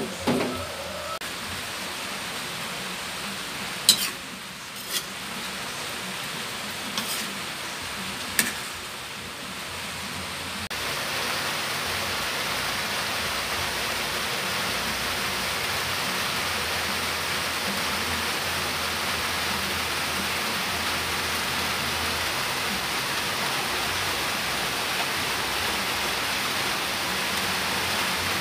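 Sardine escabeche with squash and cabbage sizzling in a wok: a steady hiss, with a few sharp clicks in the first ten seconds. The hiss steps up louder about a third of the way in and stays even.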